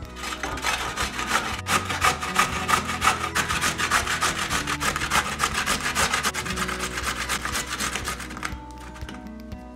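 A carrot being grated on a stainless-steel box grater: a quick, even run of scraping strokes that stops about a second before the end.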